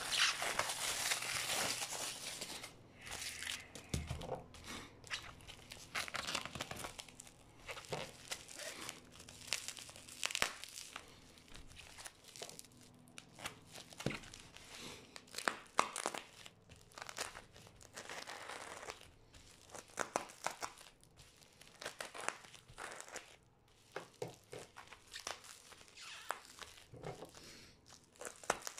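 Aluminium foil crinkling as it is peeled off a parcel, dense for the first couple of seconds, then irregular crackling and short tearing sounds as the plastic packing tape wrapped round the parcel is worked open by hand.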